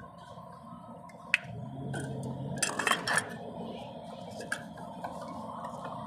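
Light clicks and clinks of a wiring connector and a broken wire being handled by hand, with a sharp click about a second in and a cluster of clicks and scrapes near the middle, over a steady background hum.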